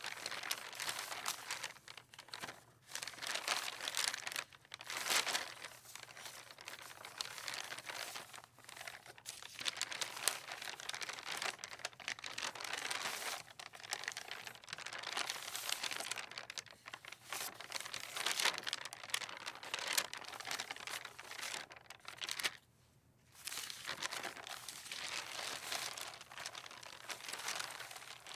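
Sheets of paper rustling and crinkling in the wind, a continuous crackling rustle that swells and eases in irregular gusts. It drops out briefly about two-thirds of the way through.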